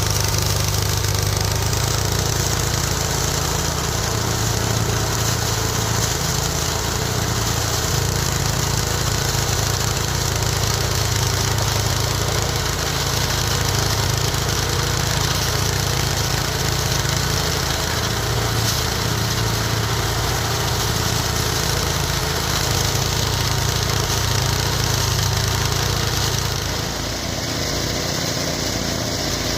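Small engine-driven mini rice thresher running steadily, a constant engine hum with a rushing noise over it; the engine note shifts and the level dips slightly about three seconds before the end.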